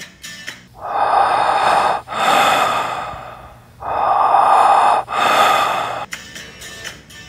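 A person breathing heavily: two loud, slow breaths, each drawn in and let out, over faint background music.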